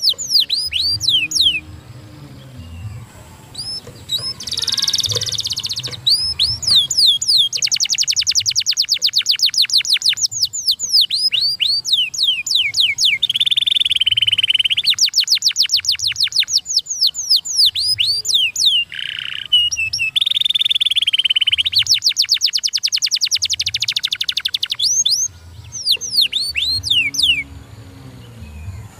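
Domestic canary singing a fast song: long rolls of rapid, evenly repeated falling notes, broken a couple of times by a held buzzy phrase.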